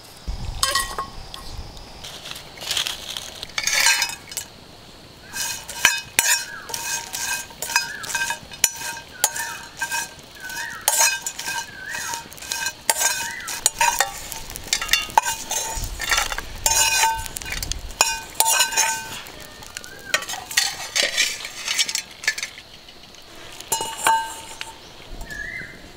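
Steel ladle scraping and clinking against an iron kadai while small dried fish are stirred and roasted in it over a wood fire, many strokes in a row, the pan ringing with a clear tone after many of them.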